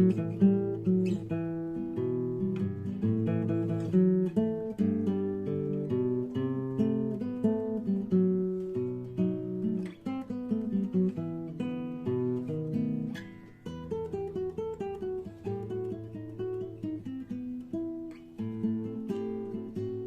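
Acoustic guitar playing on its own, a melody over chords, mixing picked notes with strums.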